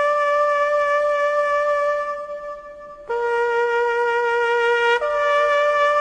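Slow instrumental music: a single melody line of long held notes in a reedy wind-like tone. The first note fades out about two seconds in, and after a short lull a new note begins, changing again near the end.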